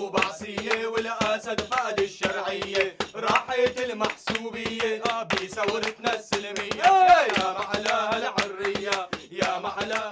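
A group of men chanting in unison to steady rhythmic hand-clapping, about four claps a second, in the manner of a Syrian street-protest chant. The chant cuts off abruptly right at the end.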